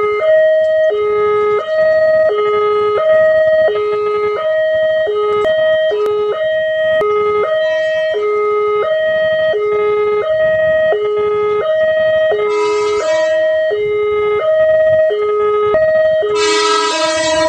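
Railway level-crossing warning siren sounding continuously: two tones alternating high and low, each held about half a second, warning of an approaching train. A louder horn blast cuts in briefly about twelve seconds in and again near the end.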